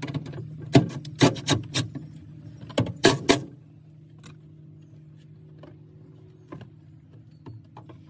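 Sharp metallic clicks and knocks from handling the hardware of a Ford F250's open rear door: a quick cluster of about eight in the first three and a half seconds, then a few faint scattered clicks over a low steady hum.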